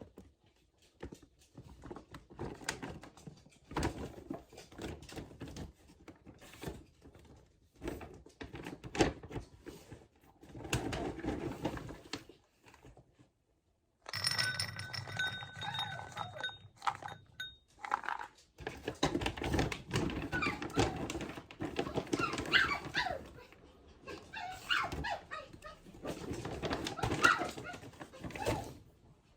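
Pet dog moving about with scattered clicks and thumps, and short high whining cries through the second half.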